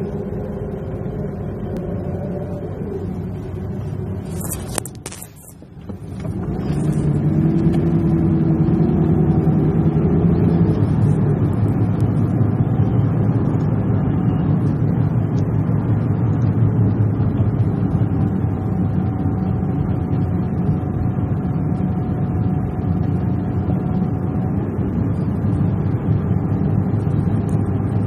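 A motor vehicle running, a steady low engine hum with its pitch shifting slightly, broken about five seconds in by a few sharp clicks and a brief drop in level before the hum returns louder.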